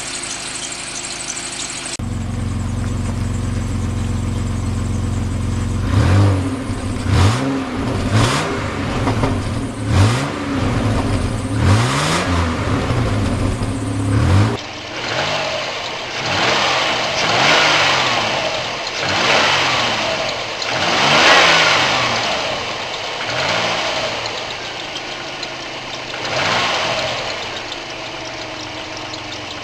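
Mitsubishi Shogun's 3.0-litre 6G72 V6 engine running shortly after a cold start. It idles steadily, then is blipped again and again, rising and falling in pitch about once a second, and later a little more slowly.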